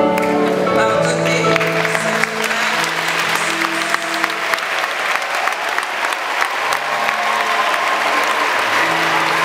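Audience applauding over background music with long held notes; the clapping swells in about a second and a half in and keeps on.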